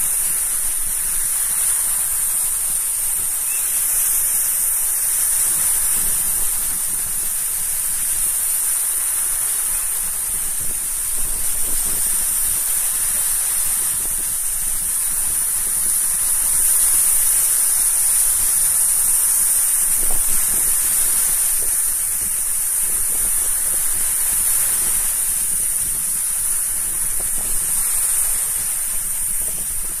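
Sea surf: small waves breaking and washing up the shore, a steady rushing hiss that swells a little louder about halfway through.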